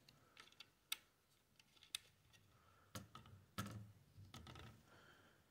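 Faint, sharp clicks and ticks, a handful about a second apart, of small metal parts being handled while a CPU cooler's mounting brackets are screwed down by hand on a motherboard.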